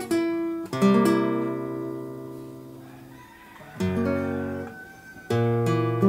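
Acoustic guitar playing slow strummed chords, each left to ring and fade: one at the start, a louder one just under a second in, then more near four and five and a half seconds in.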